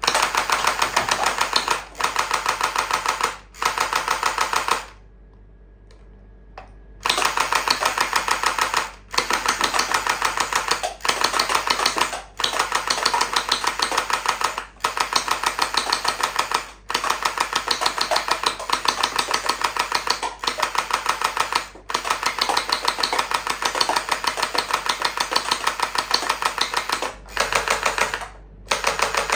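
Captain America shield toy gel blaster firing full-auto in repeated bursts of one to two seconds each: a rapid mechanical clatter, broken by short pauses and one longer pause of about two seconds.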